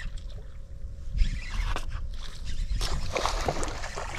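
A hooked bass splashing and thrashing at the surface beside a boat as it is reeled in, getting louder from about three seconds in, over a low rumble of wind on the microphone. A single thump about a second in.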